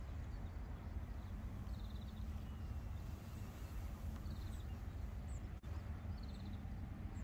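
Outdoor ambience at a calm lakeshore: a steady low rumble, with a few short, high bird twitters at about two, four and a half, and six seconds in.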